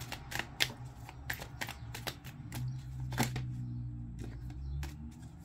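A deck of oracle cards being shuffled by hand: a stream of quick, irregular card clicks and flicks.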